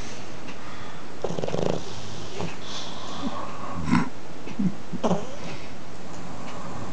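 A pug snoring: a long rattling snore about a second in, then several shorter snuffling breaths.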